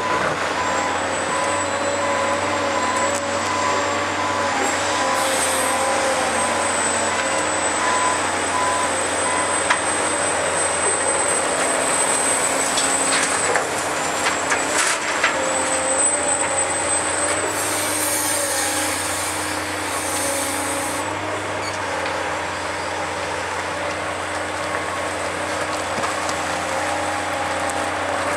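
Caterpillar 365C L hydraulic excavator working under load: its C18 diesel runs steadily, with whining tones from the machine that waver in pitch as it digs and swings. About halfway through there are a few sharp knocks as a bucketload of rock and soil drops into the dump truck's bed.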